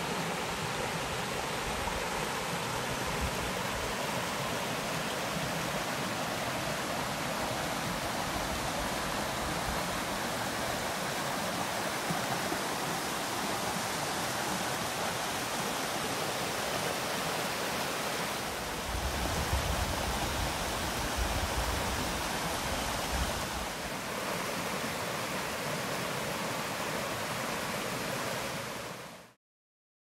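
Steady rushing of a small two-tiered waterfall, about 7 m high, pouring into its pool. A low rumble joins for a few seconds past the middle, and the sound cuts off suddenly about a second before the end.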